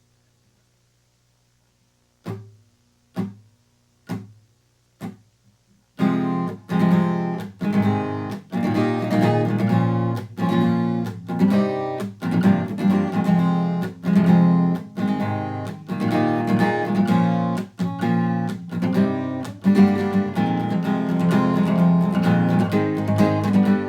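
Acoustic guitar: four single strokes about a second apart, then steady rhythmic chord strumming from about six seconds in.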